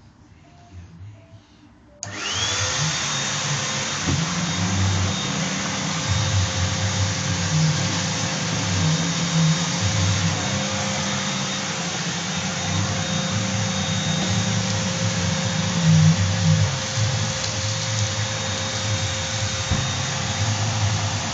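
Cyclonic vacuum cleaner switched on about two seconds in, its motor spinning up with a short rising whine, then running steadily with a loud rush of air.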